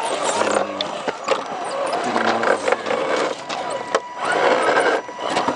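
Crunching and clicking on rocky, gravelly ground, with faint voices in the distance.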